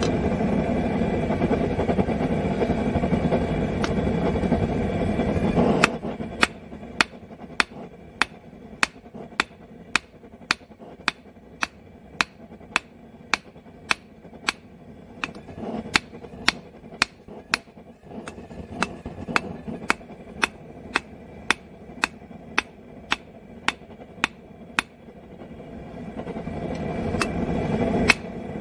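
A two-pound rounding hammer strikes hot square steel stock on an anvil, drawing out a fork tine. The blows are sharp and steady, about two a second, and begin about six seconds in. Before the blows start, and again building near the end, there is a loud steady rushing noise.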